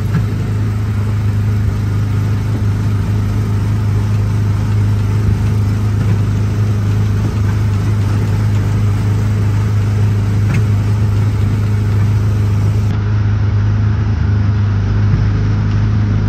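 The small gasoline engine of a Disneyland Autopia car running at a steady, even pitch, heard from the car's seat.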